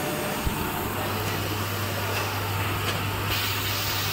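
Steady low hum and noise of factory machinery running, with a single sharp click about half a second in and a brief hiss near the end.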